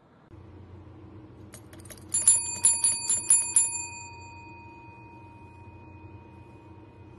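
A chrome desk bell is struck rapidly by a cat's paw, about six rings in a second and a half. The ring then fades away slowly.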